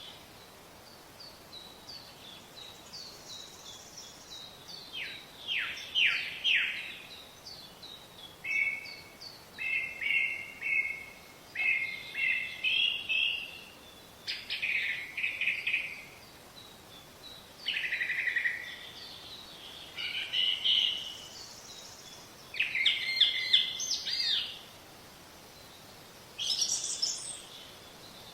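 A songbird singing: a run of short, varied, high-pitched phrases with brief pauses between them, over a faint steady background hiss.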